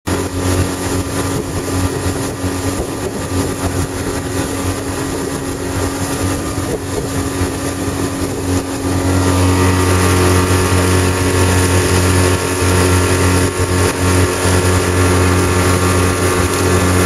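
Motorboat engine running steadily under way, with rushing water and wind. It grows louder about nine seconds in.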